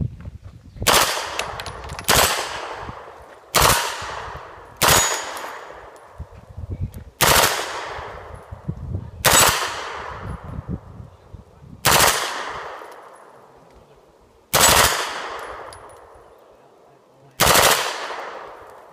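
Shouldered carbine firing nine shots at a slow, uneven pace, one to three seconds apart, each report ringing out and fading over about a second.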